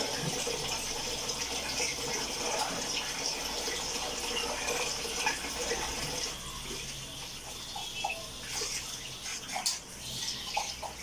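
Kitchen tap running steadily into a stainless-steel sink as glasses are rinsed under the stream, with a few light clinks near the end.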